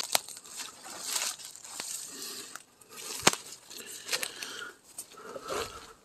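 Footsteps crunching through dry leaf litter and bamboo undergrowth, with leaves and stems rustling as they are pushed aside. There are two sharp snaps, one at the very start and a louder one about three seconds in.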